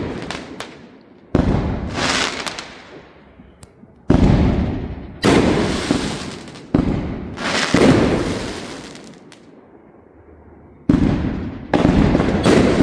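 Fireworks display: a series of about eight loud firework bursts at uneven intervals, each sudden bang trailing off in a long rumbling echo. Several come in quick succession near the end.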